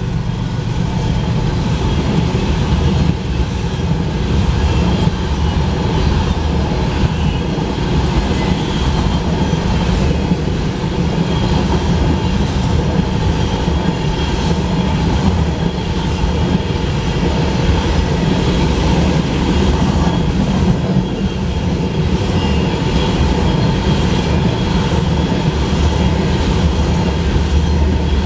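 Empty crude-oil tank cars of a freight unit train rolling past at a grade crossing: a loud, steady rumble of steel wheels on rail with clickety-clack over the rail joints.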